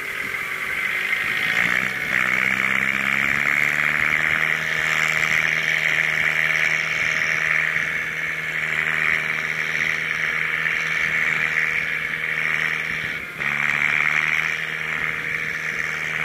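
Diesel engines of a combine harvester and the rice-laden tractor it tows, working hard under load in deep mud. The engine speed rises about two seconds in and holds steady, then dips briefly near the end before picking up again.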